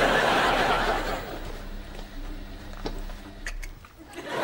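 Studio audience laughing, loud at first and dying away after about a second, then rising again near the end.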